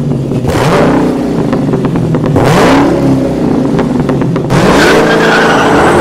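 Loud car engine revving hard, its pitch climbing and dropping several times.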